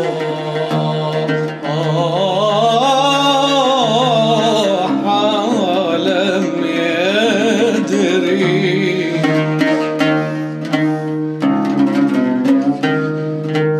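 Arabic nasheed: a male voice sings a winding, ornamented melody over a steady low drone, then about nine seconds in gives way to quick plucked-string notes.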